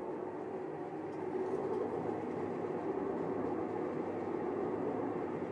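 Kenmore Oasis washer running, a steady droning hum with a constant tone, from tub bearings the technician hears as dry in rotation: the sign of worn bearings.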